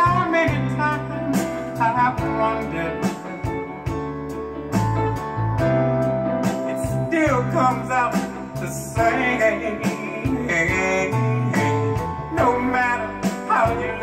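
Soul ballad recording playing through a pair of hi-fi loudspeakers: guitar with a male voice singing long, wavering notes.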